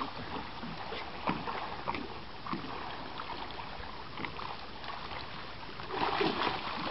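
Large fish thrashing in shallow water as it is hauled ashore on a line: irregular splashes over sloshing water, louder about six seconds in.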